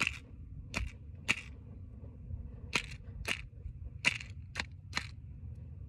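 Ordinary matches struck again and again on the side of a matchbox: about eight quick scrapes, three near the start and five more after a short pause, without a match catching.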